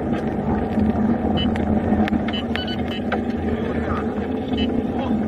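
Steady road and engine noise heard from inside a moving car at freeway speed, with a few short high-pitched beeps.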